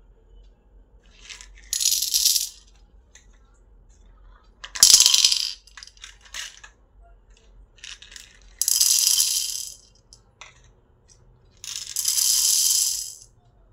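Beads poured from plastic cups into a glass bowl, rattling against the glass and each other in four short bursts about three seconds apart, with light clicks between.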